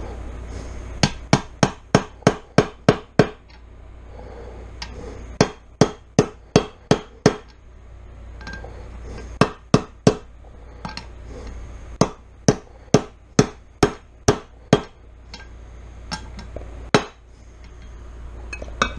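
Hammer tapping a bearing into place in a Suzuki RM250 engine case half: runs of sharp taps, about four a second, broken by short pauses, with a last single tap near the end.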